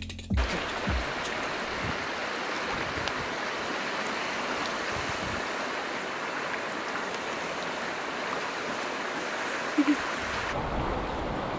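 Steady rushing of a river or stream's flowing water.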